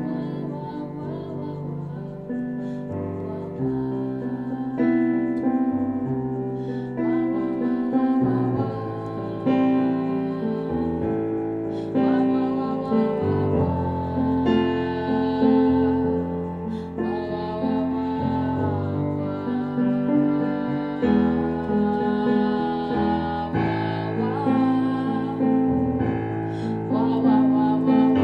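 Improvised duet: a woman's singing voice holding long, slowly moving melodic notes over piano chords played on a keyboard, the chords changing every second or two.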